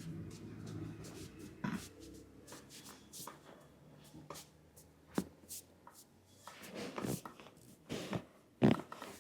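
Hands massaging an oiled scalp and hair: rubbing with many short taps and clicks, and a louder short sound near the end.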